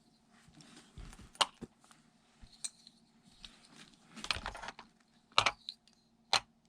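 Small plastic toy pieces being handled and set down: a few sharp clicks and taps, with a short stretch of rustling a little after the middle.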